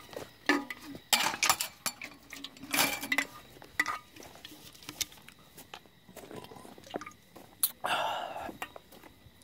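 Handling noise from a phone camera being carried and moved about: scattered knocks, clicks and short rustles, a few louder rustling bursts about a second in, near three seconds and around eight seconds.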